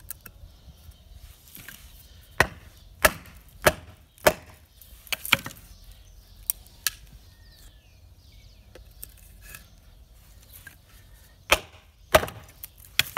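Knife blade chopping into a stick of very dry pine: a run of sharp, irregular wooden knocks about two seconds in, then three more near the end.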